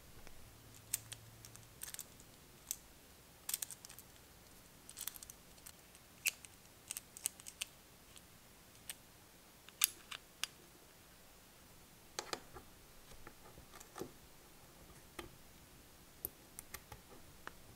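Light, irregular metallic clicks and taps as a hex key works the small screws and the camshaft and cam-gear parts of an all-metal miniature engine are handled.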